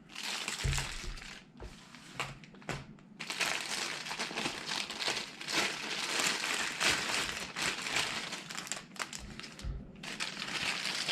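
Packaging rustling and crinkling as a rifle scope is pulled out of its box, with a couple of soft knocks, one near the start and one near the end.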